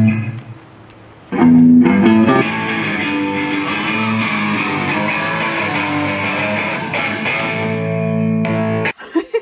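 Band music led by electric guitar: a held chord fades away at the start, then the band comes in sharply about a second in and plays on until it cuts off abruptly near the end.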